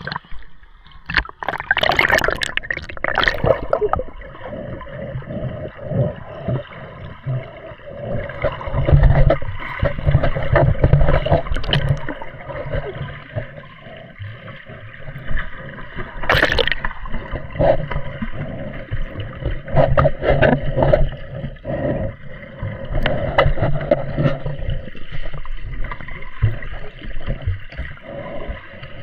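Seawater sloshing and gurgling close to the microphone, in uneven surges with a few sharp splashes.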